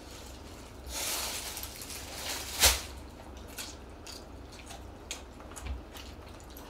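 Close-up eating sounds: jjamppong noodles being slurped and chewed, with a hissing slurp about a second in and one sharp, loud slurp or smack just over two and a half seconds in, followed by light scattered clicks.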